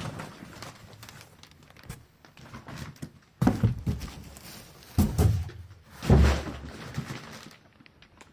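Handling noise while unpacking: light rustling with three loud dull thumps in the second half, the last one the heaviest.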